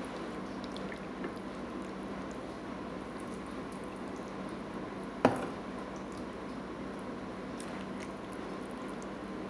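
A metal ladle scooping chicken soup and pieces of chicken into a serving bowl, with wet slopping and dripping of broth. About five seconds in comes one sharp clink of the ladle against the dish.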